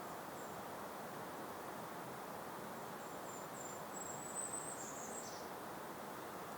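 A small songbird sings high and thin over a steady, gentle breeze. From about three seconds in it gives a few short notes, which run into a brighter trill that drops in pitch at the end, about five seconds in.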